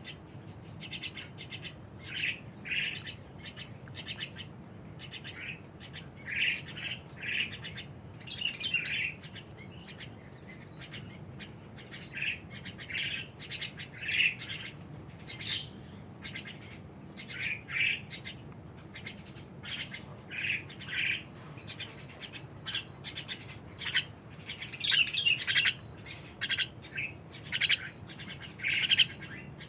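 A pet songbird, a kacer air, chirping over and over: short calls about one or two a second, many of them led by a thin, very high note. The calls grow louder near the end.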